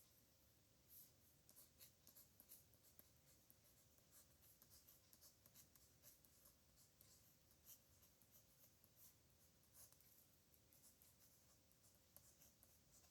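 Faint scratching of a pen nib on paper in short, irregular strokes, as characters are handwritten.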